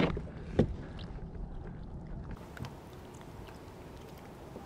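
A few small knocks and clicks from a landed fish and its fishing line being handled at the side of a kayak, over a low, steady rumble.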